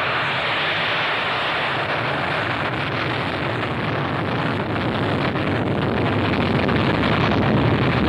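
SR-71 Blackbird's twin Pratt & Whitney J58 turbojet engines running at takeoff power: a steady roar that grows a little louder near the end.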